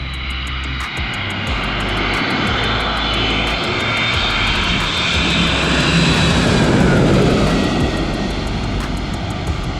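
Jet airliner passing low overhead: a loud engine roar with a high whine, swelling to a peak about seven seconds in and then starting to fade.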